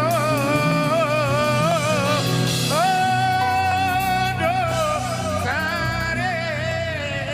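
A song with a solo voice singing a melismatic, wavering line over steady instrumental accompaniment. About three seconds in the voice slides up into a long held note, then ornaments it again, and the music slowly fades toward the end.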